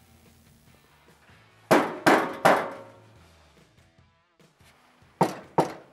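Sharp, ringing percussive hits: three in quick succession about two seconds in, then two more near the end. This is a sound-effect stinger accompanying a graphic transition.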